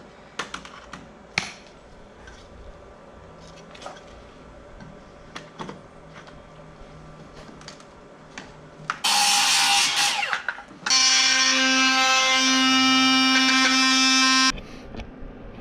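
A few light knocks and taps of trim pieces being handled, then a cordless oscillating multi-tool runs: first a short rough burst of cutting about nine seconds in, then a steady high-pitched whine for about three and a half seconds that stops suddenly.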